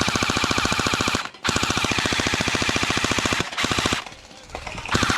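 Electric gel blaster rifle firing full-auto: a fast, even clatter of shots in two long bursts with a short break about a second in, then shorter bursts near the end.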